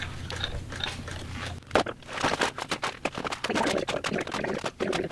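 Hard plastic toy blasters clattering and knocking together as they are handled and rummaged through in a plastic storage tub: a quick, irregular run of clicks and rattles.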